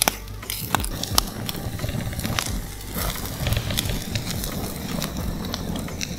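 Wood fire burning in an open pit, crackling with scattered sharp pops and snaps over a steady hiss.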